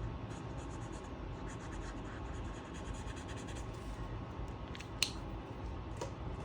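A coloring tool scratching back and forth on paper in quick, even strokes, filling in an area of a picture. There is a sharp click about five seconds in and another near the end.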